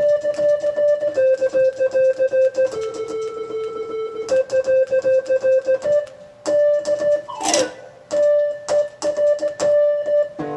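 Rock and roll keyboard improvisation in a piano sound. Rapidly repeated notes hold one pitch at a time and step down and back up, with a quick downward slide about seven and a half seconds in.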